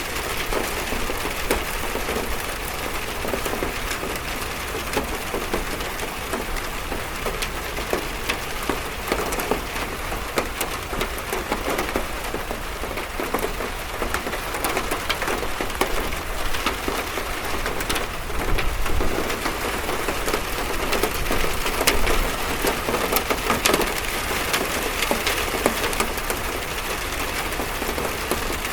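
Steady rain drumming on a metal roof, a dense patter of many small sharp drop impacts over a constant wash of noise.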